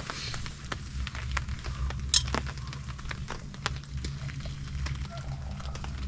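Raindrops tapping irregularly on a tarp overhead, sharp scattered ticks over a steady low rumble.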